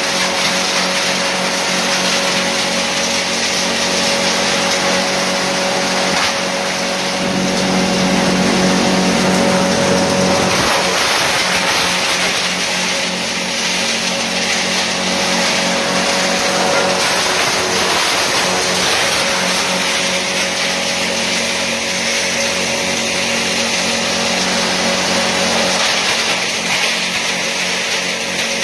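Wood crusher, a screen-type hammer-mill grinder, running and crushing wood waste fed into its hopper: a steady hum over a loud rushing noise. The hum is louder for a few seconds about a third of the way in.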